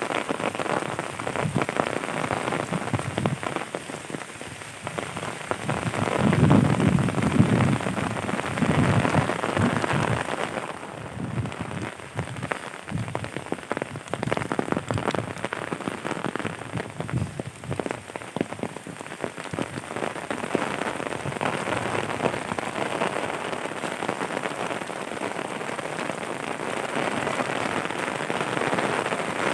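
Heavy rain falling, a dense patter of drops hitting surfaces. About six seconds in it grows louder and heavier for a few seconds, then settles back to a steady downpour.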